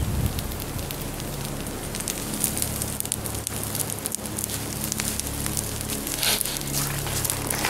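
Campfire crackling and popping in scattered sharp snaps over a steady low hum, growing louder and denser about six seconds in.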